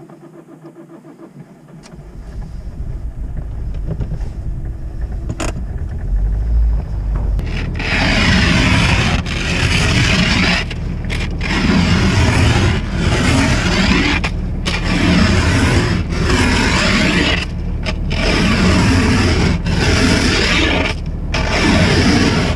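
Car engine running with a low rumble; from about eight seconds in, a plastic snow scraper pushes snow off the windshield in repeated strokes, one every second or two, heard through the glass from inside the car.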